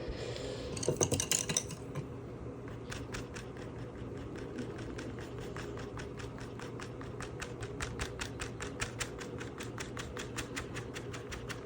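Rapid, evenly spaced light ticking or tapping, about five a second, after a brief scratchy rustle about a second in.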